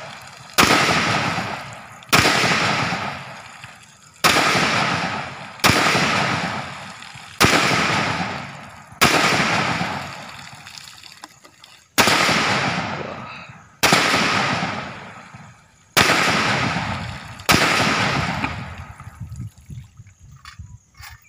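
Rifle fired in single aimed shots, about ten in all, one every one and a half to two seconds, each sharp crack trailing a long echo that dies away over a second or more. A few faint clicks follow near the end.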